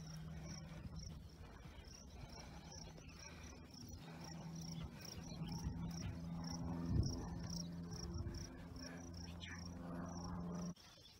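Insects chirping in dry grassland: a high, rapidly repeated chirp, over a low steady drone that cuts off suddenly near the end.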